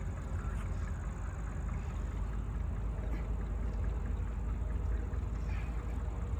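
Wind rumbling on the microphone, a steady low buffeting noise, with a few faint high chirps near the end.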